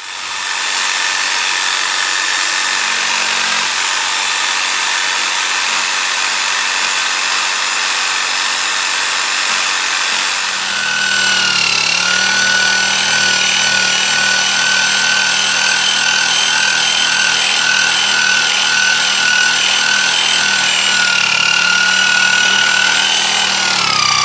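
Corded electric saw running continuously as it cuts into a tree stump. About ten seconds in, its motor whine becomes clearer and steadier under load, and near the end the whine drops in pitch as the motor winds down.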